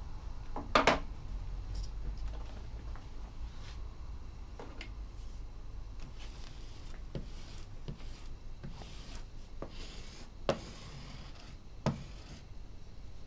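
A bone folder rubbed back and forth over paper on a book board, a soft dry swishing, with a knock about a second in and a few sharp taps of the tool near the end.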